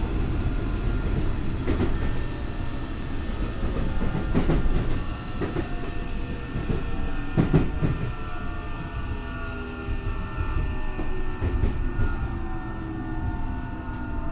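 Tokyo Metro 03 series armature-chopper train running, heard from inside the car: steady wheel and rail rumble with rail-joint clicks every few seconds. The car's traction motors and chopper give a whining 'jet sound' that this car is known for, and in the second half the whine falls slowly in pitch as the train slows.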